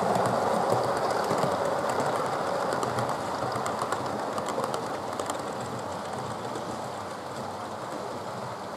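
Model railway train rolling along the track, its wheels rattling and giving a few light clicks over the rail joints, growing steadily fainter as it runs away into the distance.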